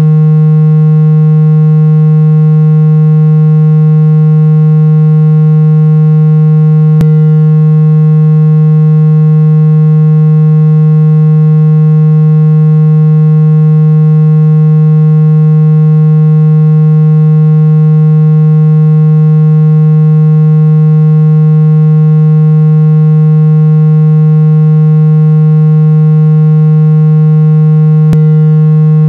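Loud, steady, unchanging low tone with overtones: a synthesized water-eject tone played at full volume to vibrate water out of a phone's speaker grille. Faint clicks about seven seconds in and again near the end.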